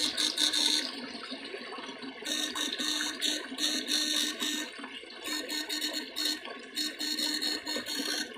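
Shallow canal water sloshing and splashing as a man wades and sweeps an electrofishing probe through it. The splashing comes and goes in bursts of about a second, under a steady hum that cuts in and out several times.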